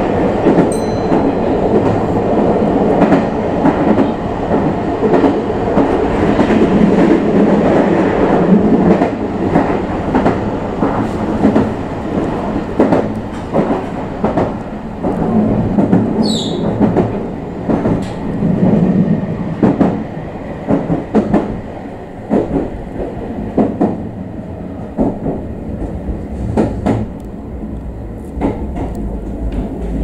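Meitetsu 3500 series electric train running, heard from the driver's cab: a heavy rumble with rail-joint clicks, carrying the abnormal noise that the uploader cannot identify. A brief high falling squeal comes about halfway through, and the running sound grows quieter in the second half as the train slows for a station.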